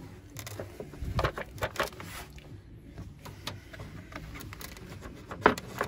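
Plastic cam belt cover on a Fiat Ducato engine knocking and scraping against the engine as it is worked loose by hand. A run of sharp clicks comes about a second in, and the loudest knock comes near the end.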